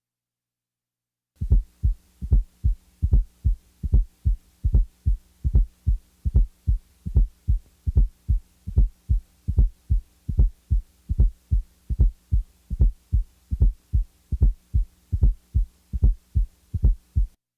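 Recorded heart sounds for auscultation: a regular heartbeat of paired thumps, a little over one heartbeat a second, over a steady faint low hum. It starts about a second and a half in and stops just before the end.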